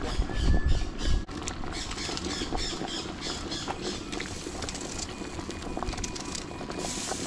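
A big pot of soup boiling over a wood fire: steady bubbling, with low bumps in the first second.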